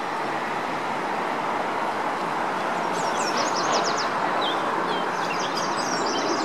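Small birds chirping in short high twittering runs, about three seconds in and again near the end, over a steady rushing outdoor roar.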